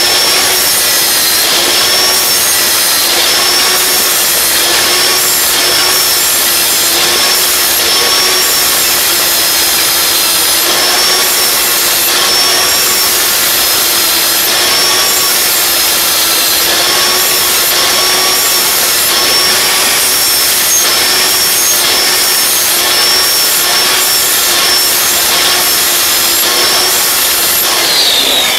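Large electric angle grinder running under load, its disc grinding the steel edge of a lawn mower blade to sharpen it. The motor hum wavers slightly as the pressure on the blade changes. Near the end the grinder is switched off and winds down with a falling pitch.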